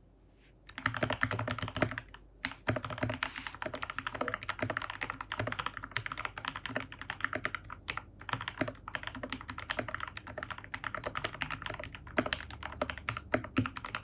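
Fast typing on a GK68X mechanical keyboard with Gateron Milky Black linear switches, lubed with Krytox 205g0 and fitted with switch films, under PBT keycaps. A dense run of key clacks starts about a second in, with a short pause around two seconds.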